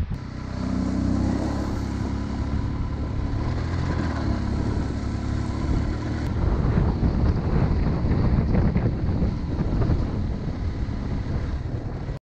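Motorcycle engine running steadily while riding, with the engine note clearer in the first couple of seconds and a rougher, busier rumble after that.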